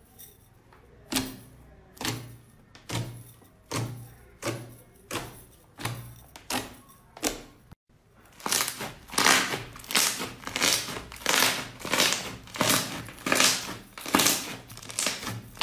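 Glossy slime pressed repeatedly with the fingertips, giving a sharp pop about once every 0.8 s. After a brief break, a thick fluffy slime is kneaded and squeezed by two hands, crackling and popping in louder bursts about one and a half times a second.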